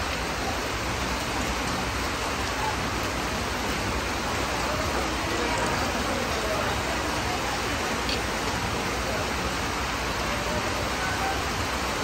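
Steady rainfall, an even hiss with no let-up.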